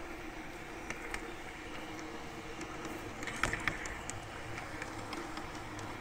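Garden-railway model train running along the track, heard from on board: a steady electric motor and gear hum with the wheels clicking over rail joints, and a cluster of louder clicks about three and a half seconds in as it crosses a set of points.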